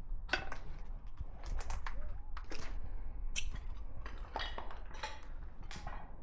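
Irregular footsteps crunching and scuffing over debris-strewn ground, with a steady low rumble underneath.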